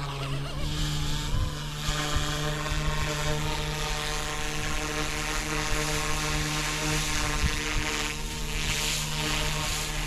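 Flite Wing 200 GPS RC helicopter's electric motor and rotor spooling up over the first second or two, then running at a steady whine as it lifts off and flies. Wind rumbles on the microphone.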